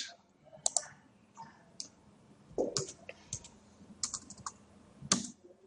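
Computer keyboard keys clicking in scattered, irregular strokes, a few of them heavier.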